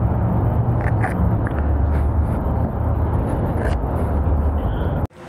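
Yamaha FZ-09's inline-three engine running with a steady low rumble and some wind noise. The sound cuts off abruptly near the end.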